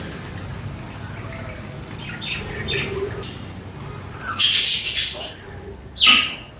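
Pet budgerigars chirping and squawking: a few short chirps, then a louder harsh rasping squawk about two-thirds of the way in, and a short call that drops in pitch near the end.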